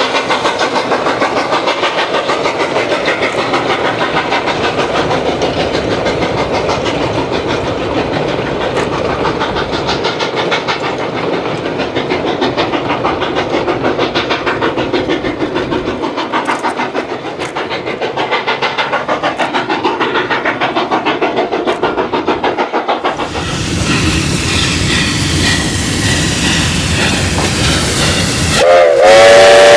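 Narrow-gauge steam locomotives hauling freight: a steady, rhythmic working exhaust with the wheels of the boxcars clattering over the rail joints. Near the end a loud steam whistle starts, sounding a chord of several tones at once.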